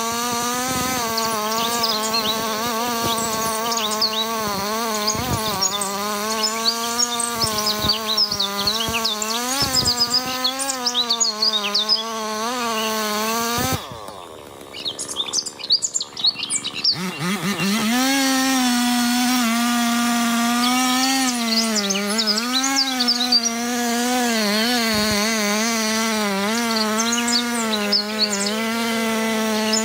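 Two-stroke chainsaw running at high revs, its pitch wavering as it cuts; about 14 s in it falls away to idle, then revs back up some three seconds later. Birds chirp throughout.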